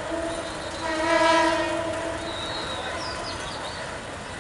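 Diesel locomotive's horn sounding a long blast on one steady note as the train approaches the platform. It swells louder about a second in and cuts off a little after two seconds.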